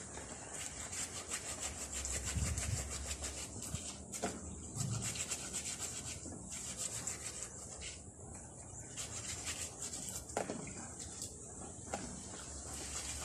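Bare hands crushing and kneading yanang (Tiliacora triandra) leaves in water in a plastic tub, a continuous wet rustling and rubbing, done to squeeze out the green leaf juice.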